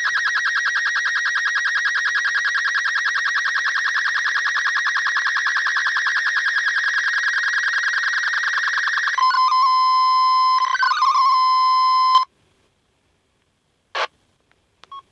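MFSK64 digital picture transmission heard as FM radio audio: a fast, even warble of many tones. About nine seconds in it changes to a few steady tones. At about twelve seconds it cuts off suddenly as the transmission ends, and two short clicks follow near the end.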